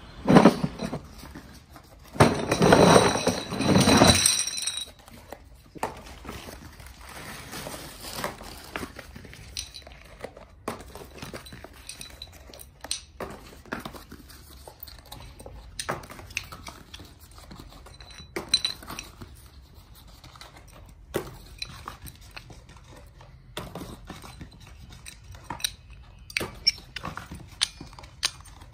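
Metal motorcycle brake shoes clattering as a plastic crate of them is tipped out onto the floor: a knock just after the start, then a loud metallic clatter for about two seconds, followed by scattered clinks of the shoes knocking together as they are handled.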